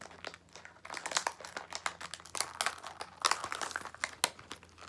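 Plastic blister packaging of a charging cable being handled and pulled apart: a rapid run of crinkles and crackles, sparse at first and much denser from about a second in.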